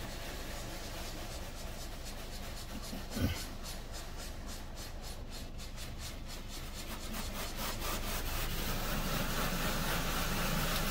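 Car-wash air dryer blowers, heard from inside the car cabin: a steady rush of blown air over the car that grows louder after about eight seconds. A short low sound is heard about three seconds in.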